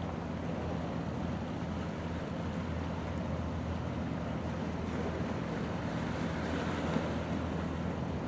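Steady low hum of a marine engine, with waves lapping and wind on the microphone.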